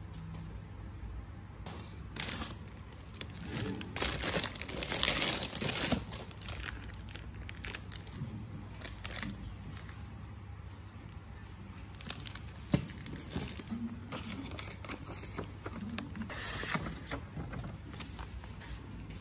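Plastic packaging crinkling and rustling in irregular bursts as small wrapped items are handled, the longest and loudest about four to six seconds in, with a single sharp tap a little past halfway.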